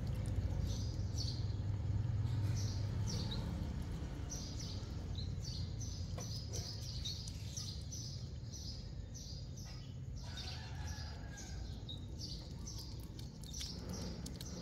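Small birds chirping over and over in short, high notes, over a steady low rumble of background noise.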